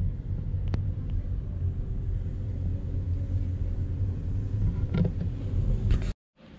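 Steady low rumble of a moving vehicle, with a few faint clicks, cutting off suddenly near the end.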